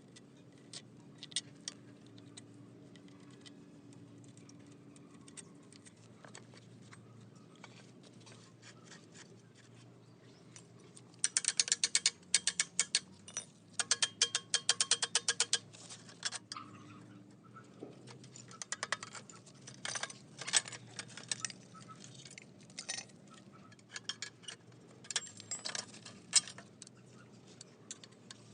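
Hand-tool work on metal parts: scattered clicks and clinks, with a run of rapid, even ticking from about 11 to 16 seconds in, and more clicking later on.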